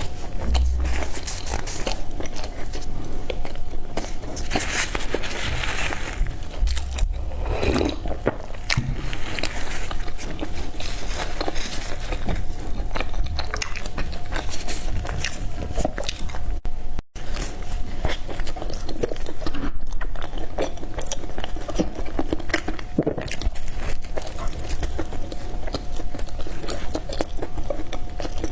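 Close-miked biting and chewing of peanut black sesame bread: bites tearing into the bread and steady mouth-chewing, with a brief dropout partway through.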